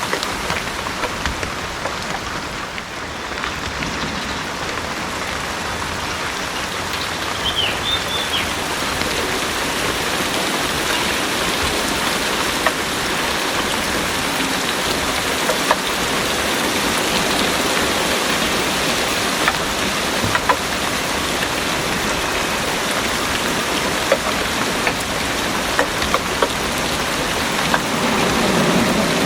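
Heavy rain pouring steadily, with individual drops ticking through it. A low rumble of thunder begins near the end.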